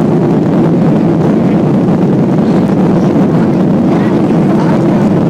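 Steady, loud cabin roar inside a Boeing 737-800 climbing out after takeoff: its CFM56 turbofan engines and the airflow over the fuselage.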